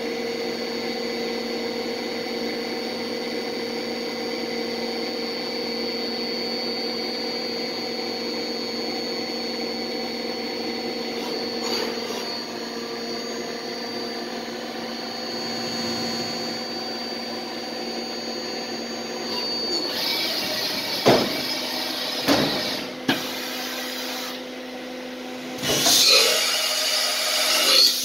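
Mazak VTC-20B vertical machining center milling a part, running with a steady whine. About twenty seconds in it turns louder and noisier, with several sudden surges.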